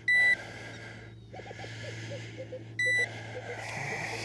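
Digital fish scale beeping twice as a bass is weighed: two short, high beeps about two and a half seconds apart.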